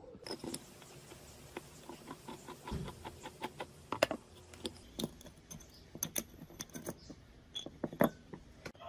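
Irregular clicks, taps and light scrapes of small metal parts being handled as the brass movement of a rusty pressure gauge is worked out of its steel case, with a dull knock about three seconds in and sharper clicks about four and eight seconds in.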